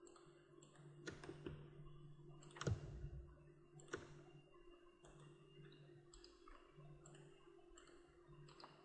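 A few scattered single computer mouse clicks over a faint steady electrical hum.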